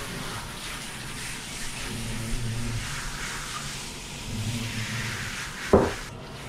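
Handheld shower spraying water over a Labrador retriever in a bathtub, shut off about six seconds in. The dog gives two low grunts through its nose along the way, and a short thump comes just before the water stops.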